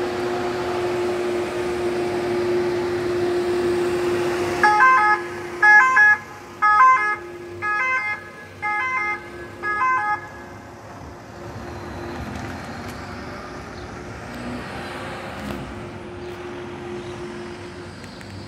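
Ambulance engine running with a steady hum, then six short, loud two-tone siren blasts about a second apart, from about five to ten seconds in. After the blasts the vehicle noise fades as the ambulance pulls away.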